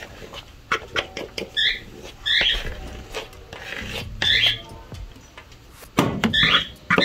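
A small pet giving several short, high squeaky calls, with spoon clicks and scrapes against a plastic mixing bowl as biscuit dough is dropped onto a casserole.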